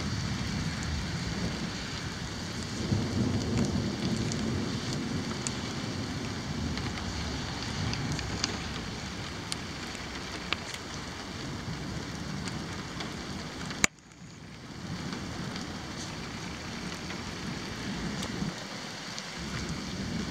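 Steady rain falling, with scattered sharp drip ticks and a low rumble of thunder about three to four seconds in. A sharp click near the two-thirds mark, after which the rain sound drops away and builds back up.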